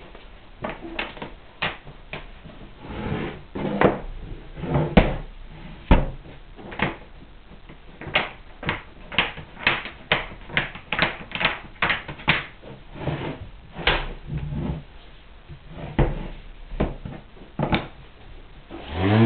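Oiled hardwood building-block pieces clacking against one another and the wooden tray as they are set in place by hand: a long run of sharp wooden knocks, about one or two a second and quicker from the middle on.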